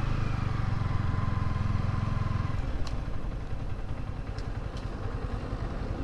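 Yamaha R15 V3's 155 cc single-cylinder engine running as the bike rides. Its strong steady note drops away about two and a half seconds in as the bike slows, with a few light clicks after.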